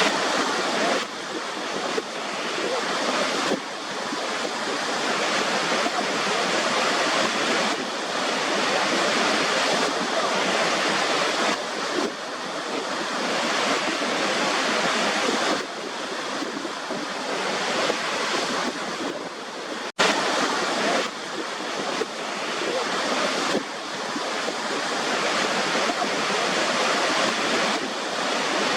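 Steady rushing white noise, like surf or falling water, with little bass. It swells gradually and then drops back abruptly every few seconds, with a brief dropout about two-thirds of the way through.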